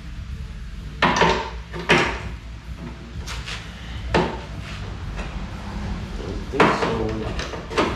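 Clanks and knocks of metal go-kart parts and tools being handled during disassembly: a few sharp, brief clanks, the loudest about a second and two seconds in and again near the end, over a steady low hum.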